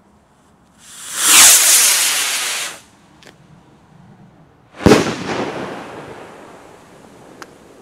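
A firework rocket launching with a loud rushing hiss for about two seconds, then a single sharp bang about two seconds later as it bursts, echoing away.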